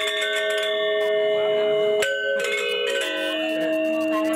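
Bronze metallophones of a Balinese gamelan ringing: several struck notes held and overlapping. A fresh group of notes comes in about two seconds in and another about three seconds in.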